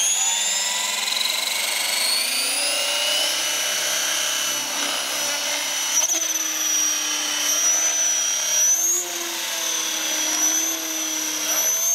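Align T-Rex 550 electric radio-controlled helicopter running, a high-pitched motor and gear whine over the rotor noise. The whine rises in pitch over the first few seconds as the rotor spools up, then holds steady with small wavers as the helicopter lifts off and climbs.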